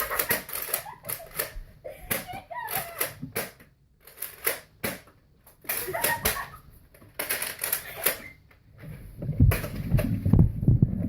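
Rapid, irregular plastic clicks and clacks of Nerf blasters in play, with short quiet gaps, and brief faint voice sounds in places.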